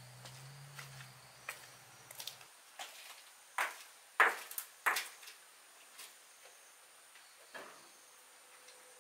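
Footsteps, a sharp regular tread about one step every two-thirds of a second, loudest for three steps a few seconds in, then a couple of lighter knocks.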